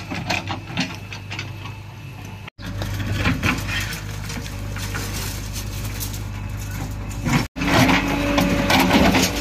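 JCB 3DX backhoe loader's diesel engine running steadily while its bucket scrapes and knocks against soil and stones while digging in the trench. The sound cuts out briefly twice, and after the second break the machine sounds louder and higher under load.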